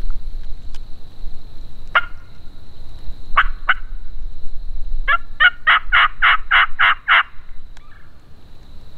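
Turkey yelping: one yelp about two seconds in, a pair about a second and a half later, then a run of about eight evenly spaced yelps lasting two seconds.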